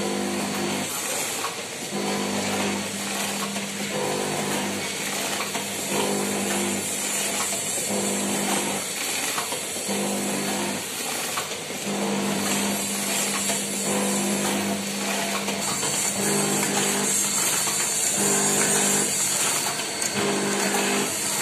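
Automatic coffee-powder sachet packing machine running: a steady mechanical hiss and clatter, with a low hum that cuts in and out every second or two as the machine cycles.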